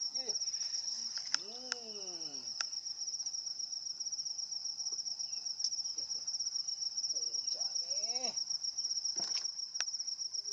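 Insects chirring in a steady, high, fast-pulsing trill.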